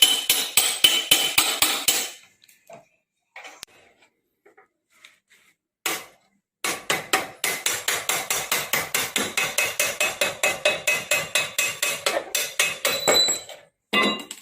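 Hammer striking metal in quick, steady blows, several a second, each with a short metallic ring. A brief run at the start, a single blow about six seconds in, then a long run of blows until just before the end.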